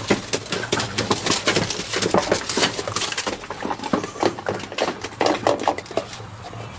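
Dogs eating from feeding bowls: a dense, irregular clatter of clicks and knocks against the dishes.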